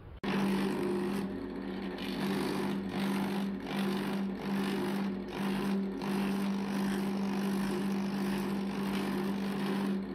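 Power hammer fitted with thumbnail shrinking dies running, its rapid strokes putting shrinks into the bunched-up corner of a hand-formed sheet-metal panel. It runs steadily with a constant hum and stops briefly several times in the first half as the panel is moved between hits.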